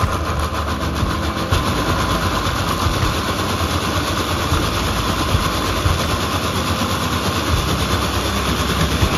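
Countertop blender motor running steadily at speed, pureeing chunks of cooked celeriac in milky liquid.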